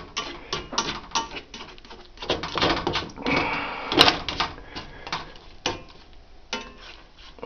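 Slotted spatula scraping and tapping in a nonstick skillet as eggs and sausage are stirred together, the skillet shifting and rattling on the gas stove grate: irregular scrapes and clicks, with the sharpest knock about four seconds in.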